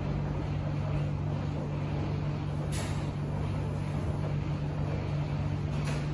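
Commercial front-loading washing machine in its main wash, the drum tumbling the load with a steady low motor hum and churning. Two short hisses come about three seconds apart.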